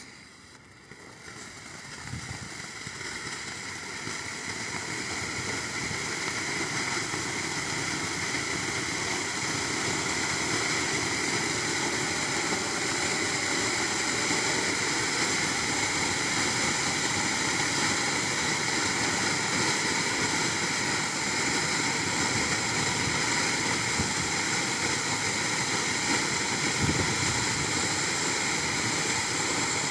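Bada Peacock fan fountain firework spraying sparks from several nozzles: a steady rushing hiss that builds over the first few seconds as it gets going, then holds.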